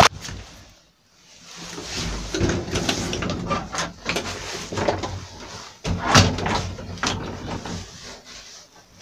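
Wooden doors of an old Zremb lift being opened and shut by hand: a series of irregular knocks and latch clicks, the loudest about six seconds in.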